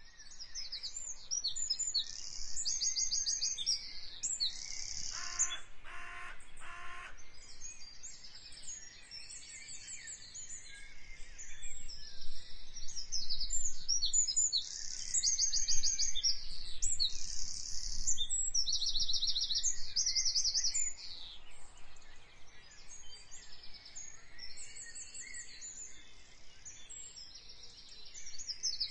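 Birdsong: many birds chirping and trilling in quick, overlapping high calls, with three short lower-pitched calls about five seconds in.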